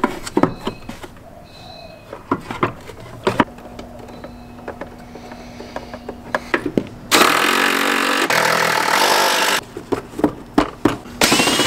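Clicks and knocks of plastic air-intake parts being handled and fitted: the airbox and its filter element. About seven seconds in, a loud steady noise runs for about two and a half seconds, and another loud stretch starts near the end.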